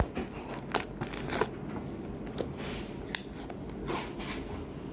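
Slime being squished and pressed by hand, giving scattered small clicks and short sticky crackles.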